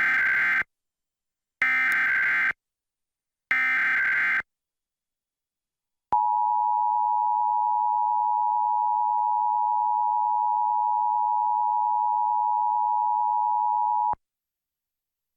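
Emergency Alert System tones. First come three short bursts of SAME digital header data, each just under a second long. After a pause, the two-tone EAS attention signal (853 and 960 Hz together) holds steady for about eight seconds and cuts off sharply. Together they open a Required Monthly Test of the alert system.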